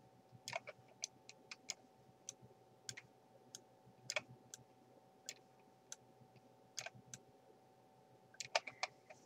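Faint, irregular clicks of a computer mouse, spaced out at first, with a quick run of them near the end.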